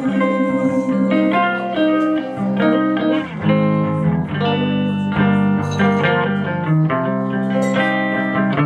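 Instrumental break in a live song: guitar playing a run of chords and notes, with no singing.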